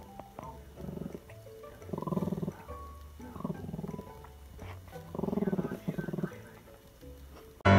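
Chihuahua growling in short bursts, about five of them, with faint background music underneath.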